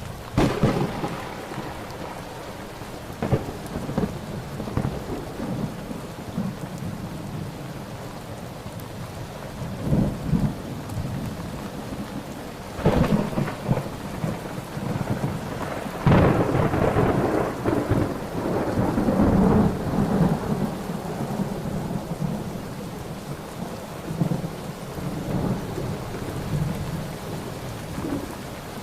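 Thunderstorm: steady rain with repeated thunder. Sharp cracks come about half a second in, near the middle, and again a few seconds later, the last one rumbling on for several seconds.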